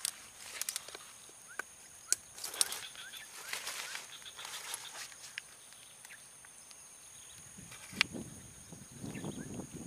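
Swamp ambience: a steady high-pitched insect drone, with scattered sharp clicks and short chirps. Lower animal calls come in near the end.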